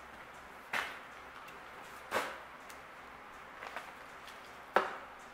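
Handling knocks on a metal workbench as a DRO display unit and a spray can are set against each other and moved: three sharp knocks about a second and a half apart, the last the loudest, with a few faint clicks between.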